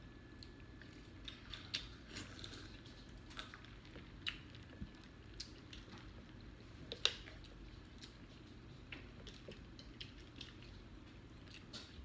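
People eating a seafood boil with their hands: quiet chewing with scattered small clicks and crackles from handling the food, the loudest about seven seconds in.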